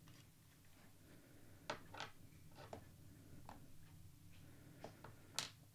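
Near silence, with a few faint, scattered clicks and taps of small metal fuel-tap parts and tools being handled on a workbench.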